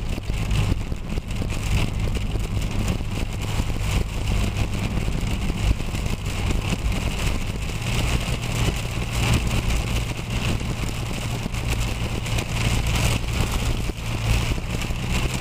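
Hail and heavy rain drumming on the car's roof and windshield, heard from inside the cabin as a dense, unbroken pelting, with a steady low hum underneath.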